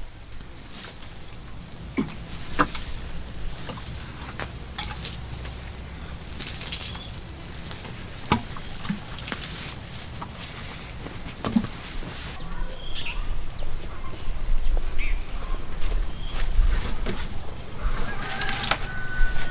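Insects, cricket-like, chirping at a high steady pitch in short repeated bursts, turning into an unbroken trill for the last several seconds. Scattered faint clicks and knocks are heard as well.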